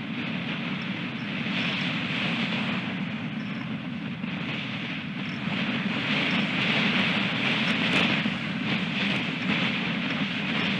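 Strong wind blowing over a nest-cam microphone: a steady rushing noise with a low rumble that swells in gusts, loudest in the second half.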